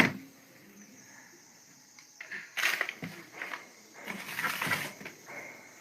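Close-miked chewing and crunching of food, in several bursts from about two seconds in.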